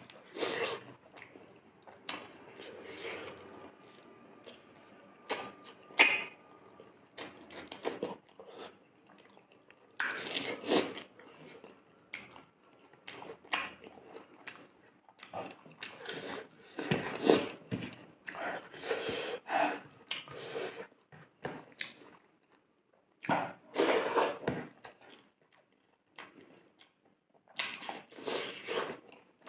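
Close-up chewing and wet mouth sounds of a person eating rice mixed with fish curry by hand, coming in irregular bursts with short pauses between mouthfuls.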